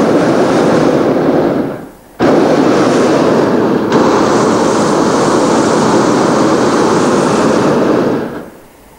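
Hot-air balloon's propane burner firing: a blast that ends about two seconds in, a brief gap, then a long blast of about six seconds that cuts off near the end. The burner is heating the envelope to check the balloon's descent.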